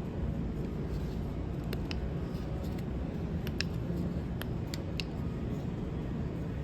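Scattered light metal clicks, about seven of them, as an extractor screw is slowly turned out of a roll pin by hand, over a steady low hum.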